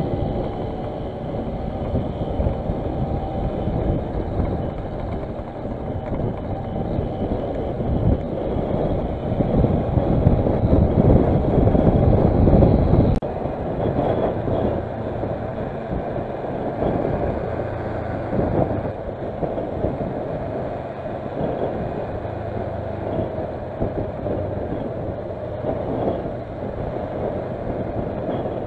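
Kawasaki Versys motorcycle riding along, engine running under a steady rush of wind and road noise on the onboard camera's microphone. The noise grows louder for a few seconds and then drops abruptly about thirteen seconds in.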